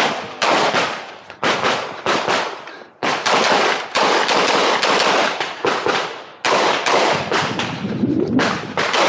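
Rapid 9mm pistol fire from a Canik Rival, several quick strings of sharp shots, each report echoing, with the densest run of shots from about three seconds in to about six and a half.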